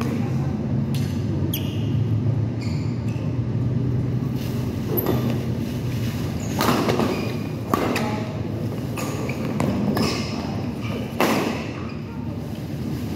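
Badminton rally: rackets striking the shuttlecock with sharp cracks every second or so, along with players' shoes thudding on the court. The hits echo in a large hall over a steady low hum.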